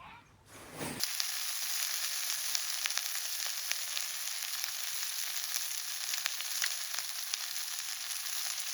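Food frying in a hot pan: a steady sizzle with small crackling pops, which starts abruptly about a second in.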